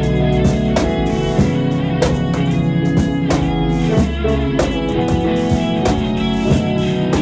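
Live band playing an instrumental passage with no vocals: guitar over a bass line and a steady drum beat.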